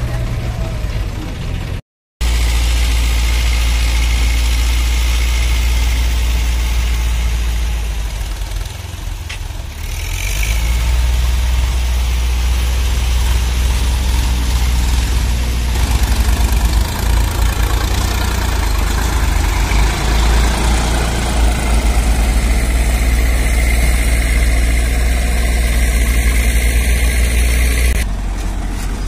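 Powertrac Euro 50 tractor's three-cylinder diesel engine running with a steady low rumble while pulling a fully loaded soil trolley. The sound cuts out for a moment about two seconds in.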